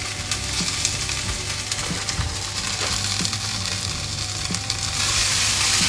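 Potatoes and green beans sizzling as they fry in vegetable oil in a pan, with a few light pops; the sizzle grows louder about five seconds in.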